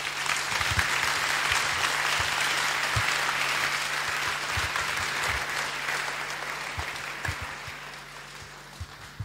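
An audience applauding, many hands clapping together, dying away over the last two seconds or so.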